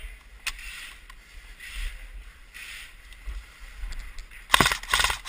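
Airsoft electric rifle firing two short rapid bursts near the end, after a few seconds of quiet shuffling and rustling.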